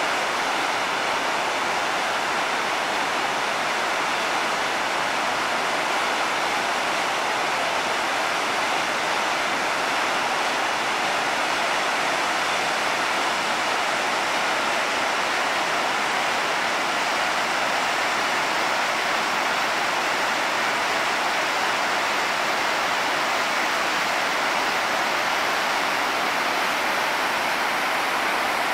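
Shell Falls, a large waterfall plunging through a rock canyon, rushing as one steady, even wash of water noise; the falls are running high with spring snowmelt.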